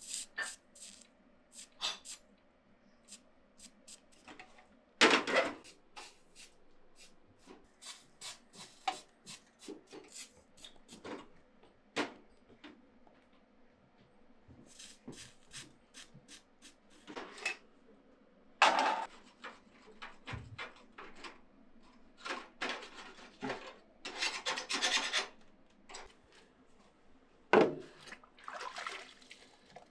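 Hand work on a copper pan during tinning: irregular rubbing and scraping on the metal, broken by scattered clicks and knocks. A few louder, longer scrapes stand out, about five seconds in, near the middle and again near the end.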